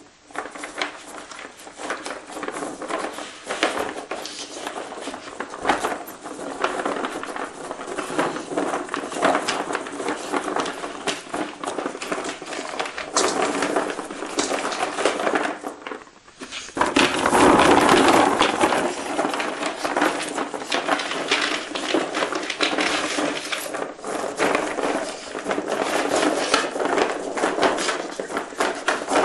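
Wine corks clattering and rustling against each other and a plastic box as a dog noses and digs through them, searching for hidden food. A dense run of light clicks, louder for a couple of seconds a little past the middle.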